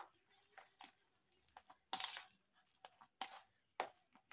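A hand mixing spiced mashed boiled potato in a steel bowl: short, irregular squishing and scraping strokes of fingers through the mash and against the bowl, the loudest about two seconds in.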